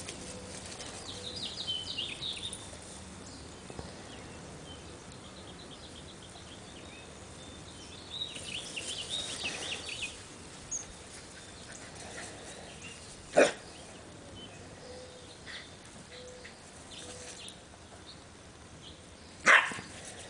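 Dogs at play, barking: two sharp single barks about six seconds apart, the second near the end.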